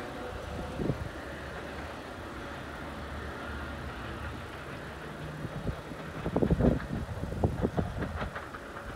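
Long Island Rail Road diesel push-pull train pulling away, its DE30AC locomotive's engine and the wheels on the rails a steady low rumble that fades as it recedes. In the second half come a run of loud, irregular low thumps.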